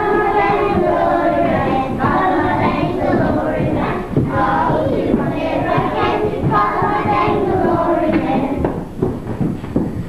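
A class of young children singing a song together in unison, phrase after phrase with short breaks between.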